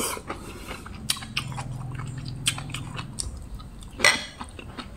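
Close-up chewing of crisp sea grapes, the little beads popping in the mouth with many small, sharp crackling clicks. One louder burst comes about four seconds in.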